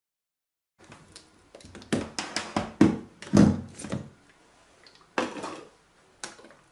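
Plastic clicks and knocks from a hand blender's chopper attachment as the lid is twisted off the bowl of puréed peaches and the blade is lifted out. A quick run of knocks comes about a second in, loudest over the next two seconds, then two more single clicks near the end.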